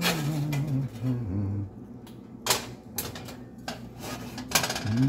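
A cast iron skillet clanking against an electric stove's coil burner: several sharp knocks and clatters over a couple of seconds as the pan is set down and moved about.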